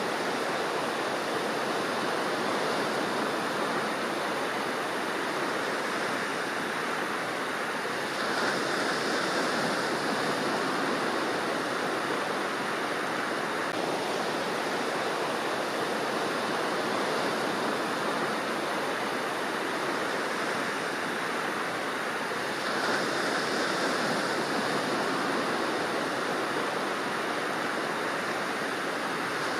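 Ocean waves: a continuous wash of surf that swells louder about eight seconds in, again about twenty-three seconds in, and once more near the end.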